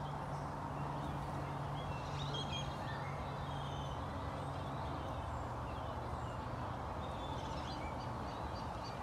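Steady outdoor background noise with a low hum, and faint bird chirps scattered through.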